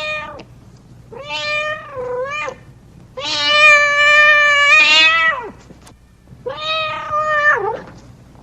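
A hungry domestic cat meowing repeatedly: a call tailing off at the start, a two-part meow, then a long, loud drawn-out meow, then a meow that drops in pitch at its end.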